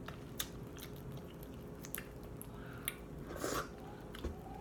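Close-up eating sounds: quiet chewing of crab meat, with a few sharp clicks and a short crackle about three and a half seconds in as crab-leg shell is picked apart by hand.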